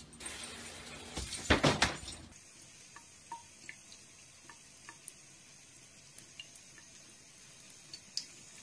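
A loud rush of noise for the first couple of seconds, strongest about one and a half seconds in. Then a thin stream from a bathroom tap runs steadily into a sink while a cat laps at it, with small, irregular drip and lapping ticks.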